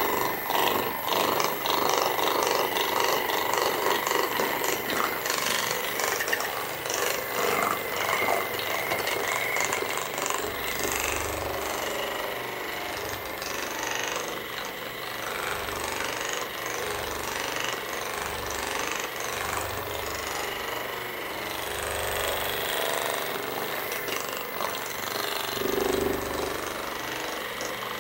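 Percussive massage gun running, its head hammering rapidly and evenly against the patient's back, with a few duller thuds later as it is pressed in.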